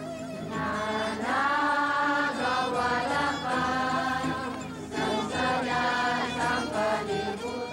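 Background music of a group of voices singing a chant in long held notes.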